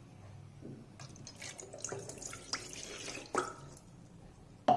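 Water poured from a cup into an aluminium rice cooker bowl, splashing and dripping irregularly onto the perforated cooking plate for a couple of seconds, then a short knock near the end.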